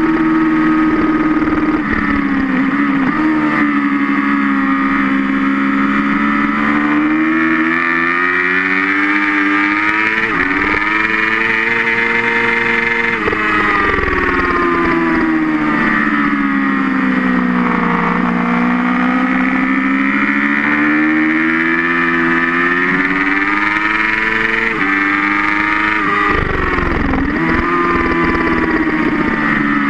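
Suzuki GSX-R 600 inline-four engine at high revs on a fast track lap. The note falls for several seconds and climbs again, with a few sudden jumps in pitch at the gear changes, over a steady rush of wind.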